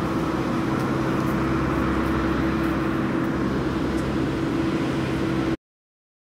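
Steady engine drone with a held low hum under an even rushing noise, cutting off suddenly near the end.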